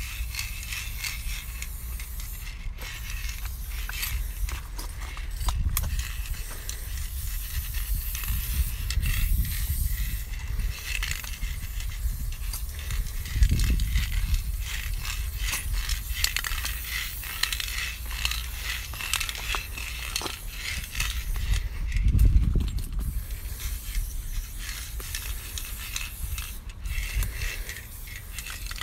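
Aerosol spray paint can hissing steadily as paint is sprayed onto a concrete wall, cut off briefly a few times between strokes. A low rumble swells twice, about halfway through and again about three-quarters of the way.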